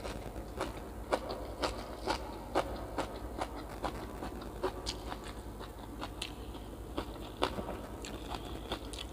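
Close-up eating: crunchy bites and chewing, with short sharp crunches coming about twice a second.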